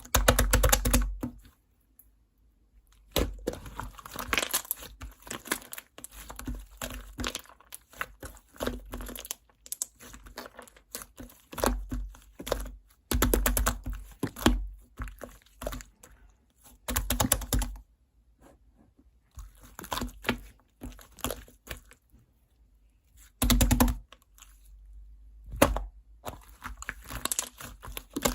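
Slime being squished, stretched and poked by hand: sticky crackling and popping in irregular bursts, with brief pauses between handlings.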